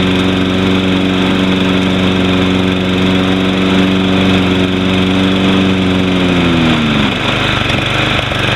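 Toro Recycler 20333's Briggs & Stratton mower engine running steady and still cold. About six and a half seconds in its pitch drops sharply and the even note breaks into a rougher, uneven running sound.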